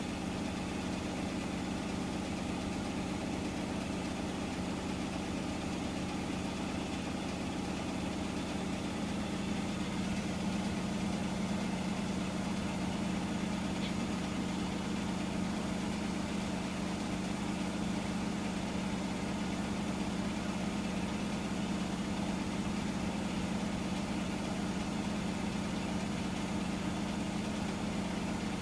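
Hotpoint washing machine running in the last minute of its cycle, a steady hum typical of the final spin, getting slightly louder about ten seconds in.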